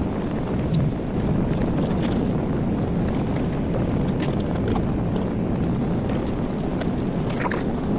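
Steady jet engine and airflow noise of a Boeing 737-800 heard inside the passenger cabin, a deep even roar with a few faint clicks and rattles.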